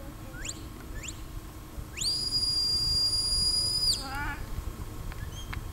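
Sheepdog handler's whistle commands to a working dog: two quick rising chirps, then one long, steady, high whistle that slides up at the start and drops away at the end.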